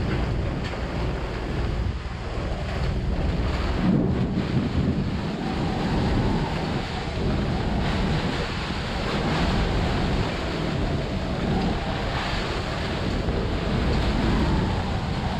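Microburst storm wind blowing hard across a sailboat, buffeting the microphone in gusts, with rough water splashing around the hull.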